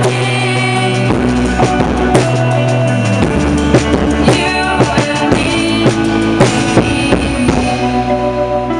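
Instrumental passage of a pop-rock song: a drum kit plays a run of busy hits over bass and held chords, then settles to sustained notes near the end.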